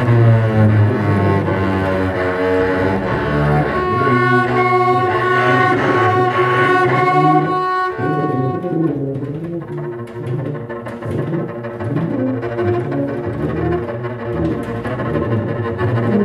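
Free-improvised duet of bowed double bass and tuba: sustained, wavering low tones. From about four to eight seconds in a steady high ringing tone rises above them, after which the sound drops lower and turns more broken and shifting.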